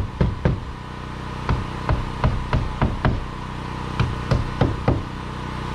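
Poplar bark siding being fastened to a cabin wall: sharp knocks in quick groups of three to six with short pauses between, over a steady hum.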